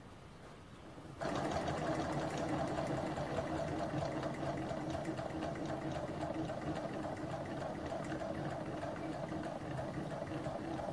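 Small gamma-type Stirling engine, heated by its methylated-spirits burner, starts up abruptly about a second in and keeps running with a steady, fast mechanical whirr of its pistons, linkage and flywheel.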